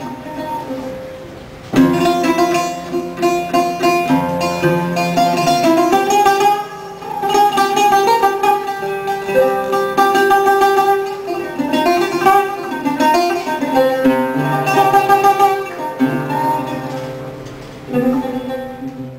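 Background music led by plucked guitar, playing a melodic line over held bass notes and fading out at the end.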